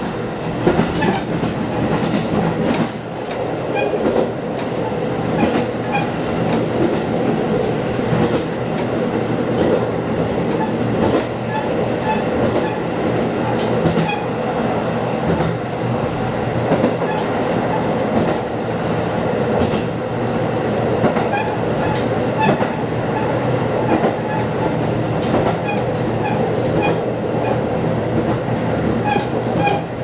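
Diesel railcar running on single track, heard from inside the driver's cab: a steady engine drone under the clickety-clack of the wheels passing over rail joints, with scattered clicks throughout.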